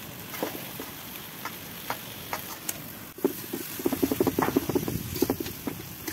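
Metal spatula stirring fried boiled eggs through thick masala in a black iron kadai: a few light ticks, then from about three seconds in a quick run of knocks and scrapes against the pan.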